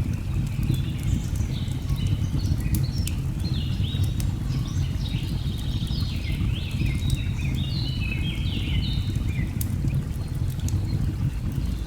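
Steady low rush of a waterfall with birds calling over it, many short notes that slide down in pitch, coming thick and fast through most of the stretch. A few sharp crackles of a log fire click through now and then.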